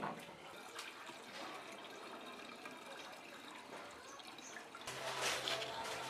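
Liquid being poured and trickling into plastic containers, through a funnel into a plastic bottle. A louder rush of noise comes in about five seconds in.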